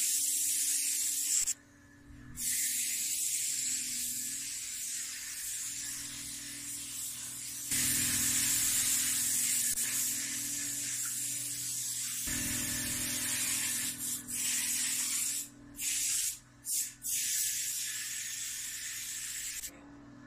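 Aerosol spray paint can hissing as paint is sprayed onto a wall, in long sprays broken by a short pause about two seconds in and several quick breaks near the end, over a faint steady hum.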